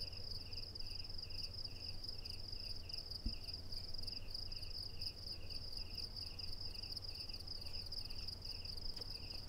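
Crickets chirping: a steady high trill with a lower chirp repeating about three times a second, over a low hum. A single low thump about a third of the way in.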